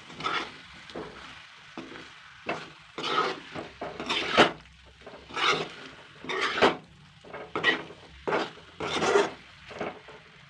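A spatula scraping along the bottom of a pan as chicken pieces in thick masala are turned over, about a dozen strokes roughly one a second, with a light sizzle between them. The chicken is being turned so it doesn't catch and stick to the bottom while it cooks on low heat.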